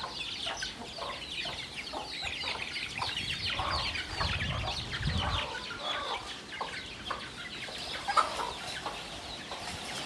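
A brood of chicks peeping nonstop with short, high, falling cheeps, while a hen clucks among them, one call standing out louder about eight seconds in.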